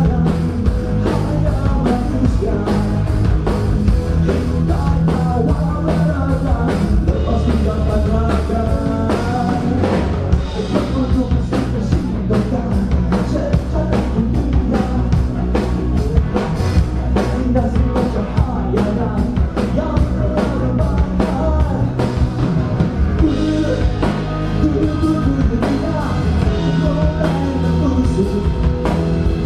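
Live rock band playing, with a drum kit and electric bass under a male lead vocal; the beat and the singing run on without a break.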